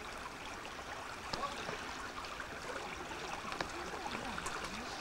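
Steady rushing of the Likhoborka, a small river flowing under the bridge, with faint voices near the end.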